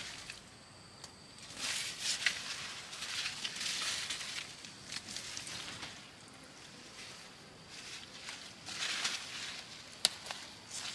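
Rustling and brushing noises in bursts, with one sharp click near the end.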